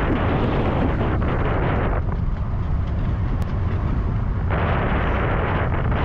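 Wind buffeting the camera's microphone in a heavy, ragged rumble as it moves fast over choppy water, with a rushing hiss of water that drops out about two seconds in and comes back about two seconds later.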